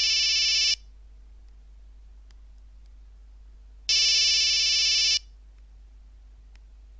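Nokia 1100 monophonic ringtone: a buzzy electronic ring sounding in a ring-and-pause pattern. One ring ends about a second in and another sounds for just over a second near the middle, about three seconds apart.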